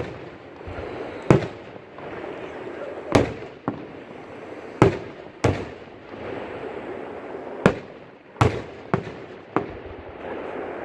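Aerial fireworks shells bursting: about nine sharp bangs at irregular intervals, several coming in quick pairs.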